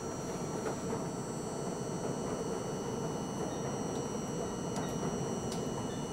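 An R42 subway car running along elevated track, heard from inside the front car: a steady rumble of steel wheels on the rails, with a few faint clicks over it.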